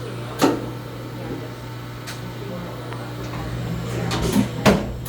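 Steady low hum of a powered-up Fadal VMC15 vertical machining center, broken by sharp clunks: one about half a second in, a faint click around two seconds, and two louder clunks close together near the end.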